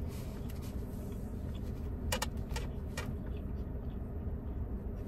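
Steady low rumble of a car's engine and road noise heard from inside the cabin, with a few short clicks about two and three seconds in.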